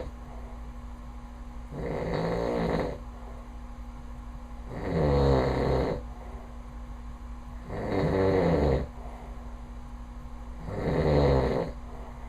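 A man snoring loudly in his sleep: four rattling snores about three seconds apart, each lasting about a second.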